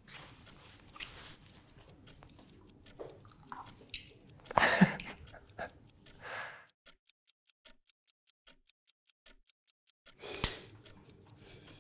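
Quiz answer timer: quick, even clock ticking counting down the thinking time, with a brief louder noise about five seconds in and another near the end.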